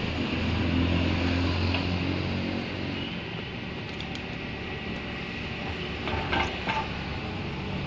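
Vehicle engine hum in traffic noise, strongest in the first couple of seconds, with a few brief clicks and short blips about six seconds in.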